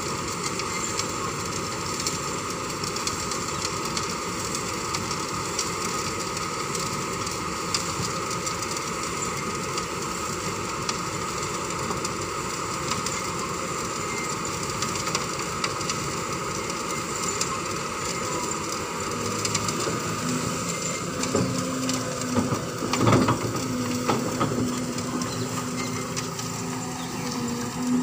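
Kobelco hydraulic excavator's diesel engine running steadily as the arm and bucket work. From about two-thirds of the way in, the bucket digs into loose soil with knocks and scraping, and a steady low tone comes in over the engine.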